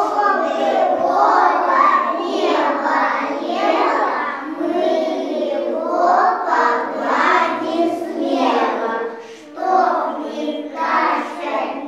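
Young children singing together in chorus.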